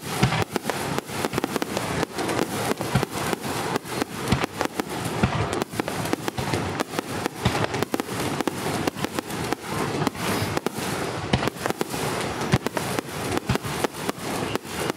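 Aerial fireworks display: a rapid, unbroken barrage of shell bursts, several sharp bangs a second.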